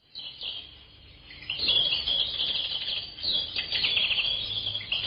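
Birds chirping: many quick, high chirps, sparse for the first second or so, then growing denser and louder.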